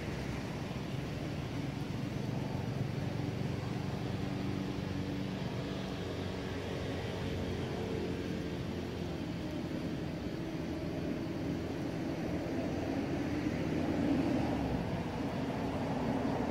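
Steady drone of an engine running in the background, its hum drifting slowly in pitch and a little louder near the end.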